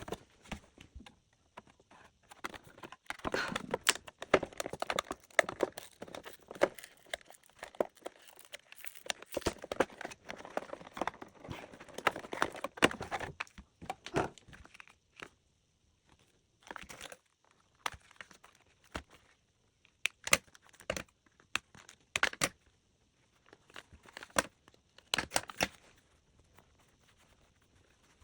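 Blind-box toy packaging being torn open and crinkled by hand. The tearing and crinkling runs busily for about ten seconds, then only occasional short rustles and taps follow.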